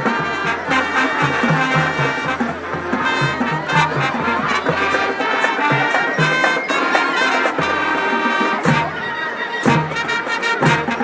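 High school marching band playing a swing-style tune, brass section in full with a steady beat of low bass notes and drum hits.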